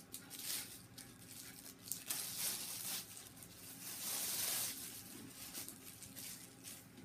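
Clear plastic wrap being pulled off a leather handbag strap and crumpled by hand: irregular crinkling and rustling.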